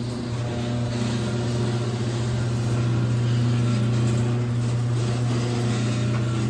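Liftmaster 1/2 hp chain-drive garage door opener running, its motor giving a steady, even buzzing hum as the chain drives the door.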